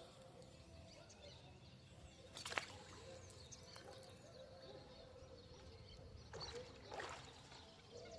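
Near silence: faint outdoor background with a few brief clicks or knocks, one about two and a half seconds in and a couple more around six to seven seconds in.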